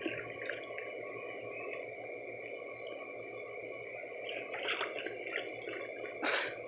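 Dog splashing and sloshing water in a shallow plastic wading pool as it noses and paws at a floating toy. There are brief splashes about four to five seconds in and a louder one near the end.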